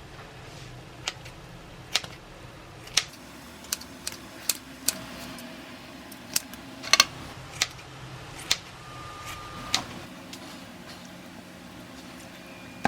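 Irregular sharp clicks and clinks of kitchen utensils during cooking, over a steady low hum.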